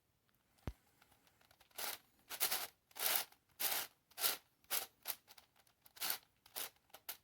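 A 3D-printed PLA twisty puzzle, the Radiolarian 5, turned by hand. A sharp click comes under a second in, then a run of short, irregular scrapes and clicks as the plastic layers are twisted one after another.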